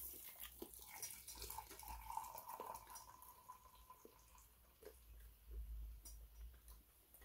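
A spoon stirring coffee in a metal canteen cup: faint liquid swishing with light clinks of the spoon against the cup.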